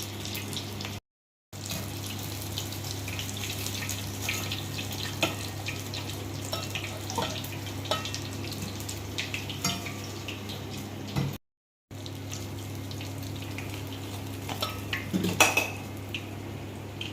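Chicken donuts deep-frying in hot oil, a sizzling crackle with scattered clinks of a metal utensil against the pan and a steady low hum underneath. The sound drops to dead silence twice for a moment, once about a second in and again past the middle.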